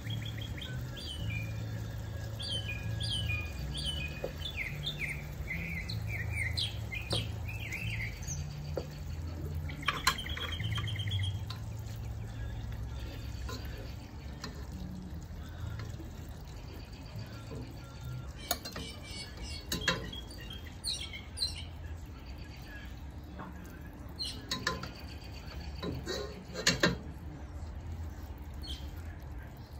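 Birds chirping in quick repeated falling calls, mostly in the first third, over a steady low hum. A spoon knocks and scrapes against a metal cooking pot several times, the sharpest knocks about ten seconds in and near the end.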